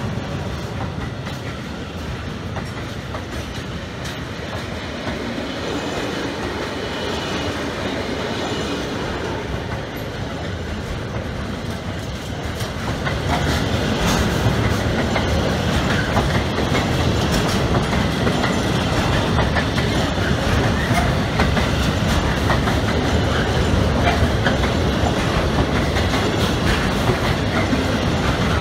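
Freight train of loaded container wagons rolling past close by, its wheels running over the rails with many short clicks. The noise grows louder about halfway through.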